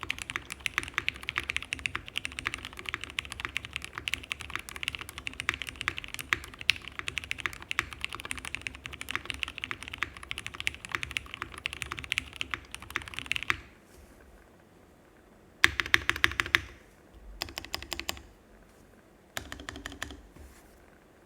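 Fast, continuous typing on a Typ 65+ mechanical keyboard with lubed and filmed Cherry Hyperglide Black linear switches, GMK keycaps and a top-mounted carbon fibre half plate. Past the middle it stops, and then comes back as three short quick bursts of keystrokes.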